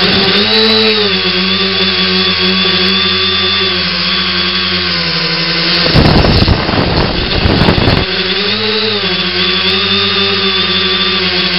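X900 tricopter's three electric motors and propellers whining steadily in flight, the pitch dipping and rising with throttle changes about a second in and again near nine seconds. A loud burst of rushing noise, the loudest part, runs from about six to eight seconds.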